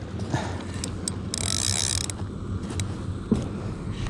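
Penn spinning reel being cranked, its gears whirring steadily as line is wound in, with a few sharp clicks and a brief hiss about a second and a half in.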